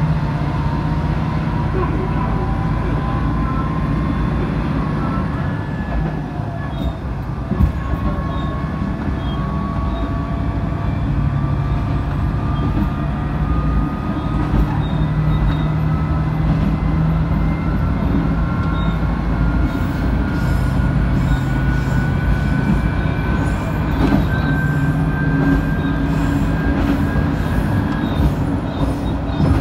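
Moka 14 diesel railcar running and accelerating, heard from inside: a steady low engine hum under a whine that rises slowly in pitch as it gathers speed. From about two-thirds of the way in, the wheels click at even intervals over the rail joints.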